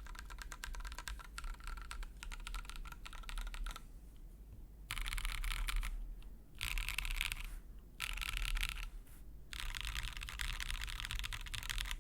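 Typing on a custom TeneT mechanical keyboard with Geon baby blue tactile sliders in Gateron Gift linear housings, on a gasket-mounted PC plate with XMI keycaps. A steady run of key clacks gives way to a short pause, then four bursts of fast typing with brief breaks between them.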